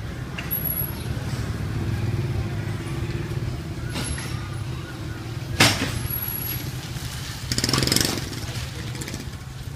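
Street ambience dominated by a motor vehicle engine running with a steady low hum. A sharp knock comes a little past halfway, and a brief louder rattling burst follows about eight seconds in.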